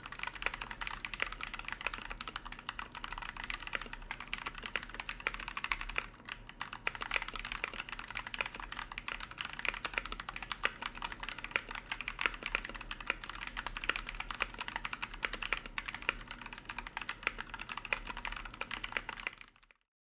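Noir OLV75 mechanical keyboard being typed on at a steady pace: a dense, continuous run of key clacks, with a brief pause about six seconds in.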